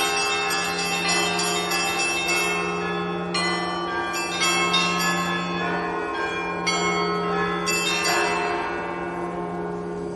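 Russian Orthodox church bells rung by hand from a belfry: quick, irregular strikes of the small high bells over the steady hum of a large bell. The strikes thin out and stop about eight seconds in, and the bells are left ringing out and fading.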